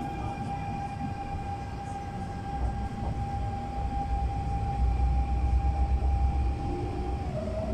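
MTR K-Train electric multiple unit pulling away. Its traction inverter gives a steady electric whine that steps down to a slightly lower pitch near the end, over low wheel-and-motor rumble that grows as the train gathers speed.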